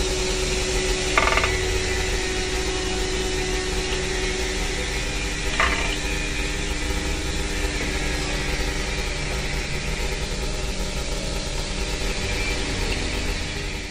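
Steady workshop machinery noise with a low rumble and a faint steady hum, with two short metallic knocks, one about a second in and one near six seconds in. The sound fades out at the end.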